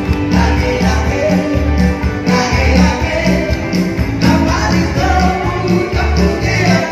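Background music: an upbeat song with a steady, evenly repeating beat.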